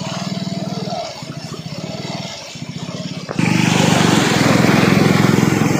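A small engine running steadily with a fast, even pulsing beat; a little over three seconds in, the sound cuts abruptly to a much louder, rougher noise.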